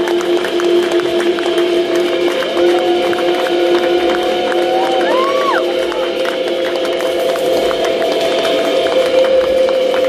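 Live rock band playing, amplified guitars and keyboard holding long notes over drums and cymbals. The held notes shift pitch a couple of times, with a short bending note about five seconds in.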